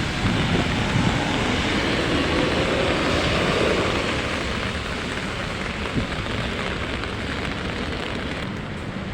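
Steady rain on a city street with traffic passing; one vehicle swells past about two to four seconds in.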